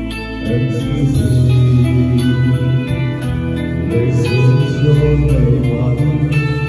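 Karaoke backing music with guitar played loud through a PA speaker system, with a man singing along into a wireless microphone.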